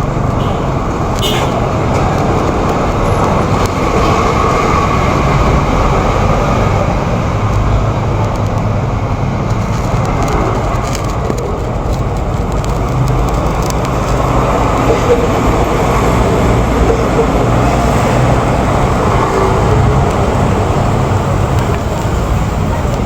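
Steady vehicle rumble and road noise with a low engine hum, unchanging throughout.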